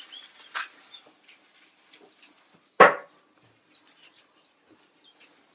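A cricket chirping steadily, about three short high chirps a second. A faint click about half a second in, and one sharp knock near the middle that is the loudest sound.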